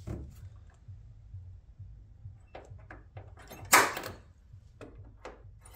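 Center punch marking a drill hole through a plastic side skirt into the car's rear arch: a few faint clicks and taps, then one sudden loud snap about four seconds in.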